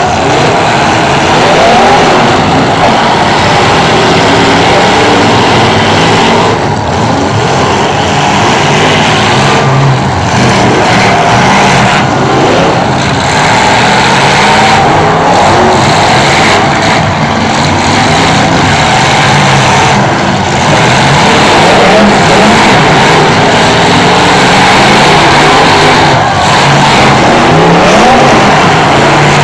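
Many demolition derby cars' engines revving hard at once, loud and continuous, with pitches rising and falling as the drivers gun them in and out of collisions.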